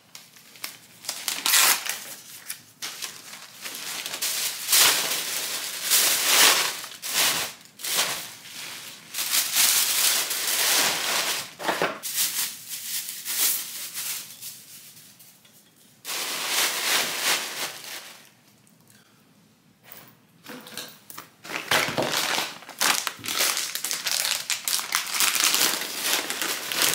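Cellophane, tissue paper and plastic wrappers crinkling and rustling as they are handled and stuffed into a basket, in irregular bursts with a brief lull about two-thirds through.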